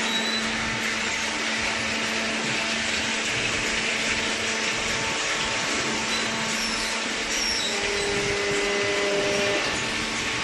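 Hydraulic baling press running: a steady motor-and-pump drone with a constant low hum and a hiss of noise over it.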